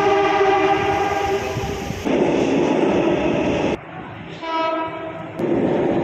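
Sydney Trains train horn sounding a blast of about two seconds, followed by the steady noise of the train running. After a cut about four seconds in, a second, shorter horn blast comes, then the noise of a train running through a station.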